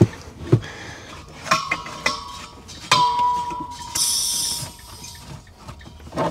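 Metal clinks and knocks as a propane regulator hose fitting is fitted onto the valve of a propane tank in a compartment. A knock about three seconds in leaves a ringing tone that slowly fades, and a short hiss follows about a second later.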